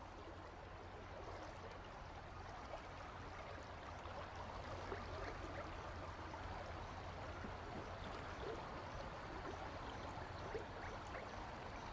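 Steady, fairly quiet flow of river water with a low hum underneath, gradually getting a little louder.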